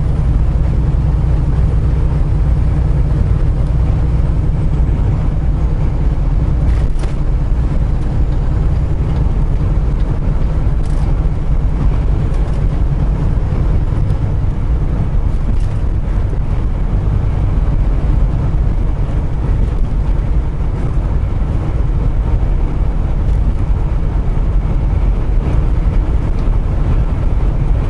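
Semi truck cab on the move: the steady low drone of the diesel engine and road noise, with a few faint clicks.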